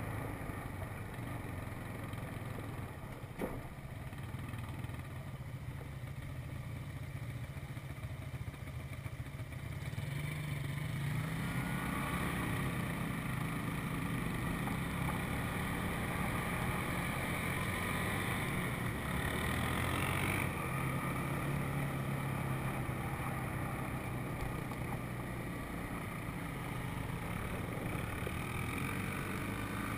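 A four-wheeler's engine running under the rider on a dirt track, low and steady at first, then louder with a higher, fuller note from about ten seconds in as it picks up speed. A single sharp knock a few seconds in.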